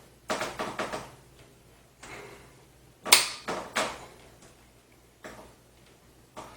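A hard-drive tray being pushed and slid into a PC case's drive mount: a quick run of scraping clicks, then a loud sharp click with two more close after it about three seconds in as the tray locks into place, and a few light knocks near the end.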